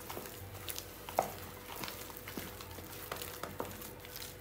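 Wooden spoon stirring and mashing soft potatoes with butter and milk in a plastic bowl: irregular squishing with light taps of the spoon against the bowl, the sharpest about a second in.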